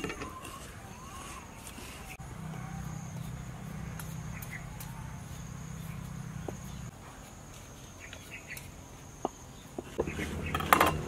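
Outdoor country ambience: a steady high insect drone with a few bird chirps, a low hum for a few seconds in the middle, scattered sharp clicks, and a louder clatter near the end.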